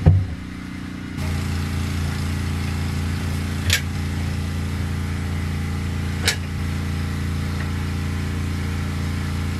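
A steady, low mechanical hum like an idling engine or running motor, holding one unchanging pitch, which gets louder about a second in. Two short sharp clicks sound during it.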